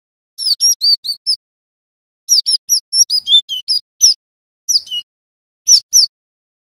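Cinereous tit (gelatik batu) calling: quick runs of short, sharp down-slurred chirps in several bursts with brief pauses between them, the later ones only one or two notes.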